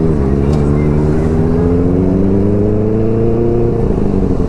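Motorcycle engine accelerating on the road: its pitch rises steadily for about three and a half seconds, drops briefly near the end at a gear change, then starts to climb again.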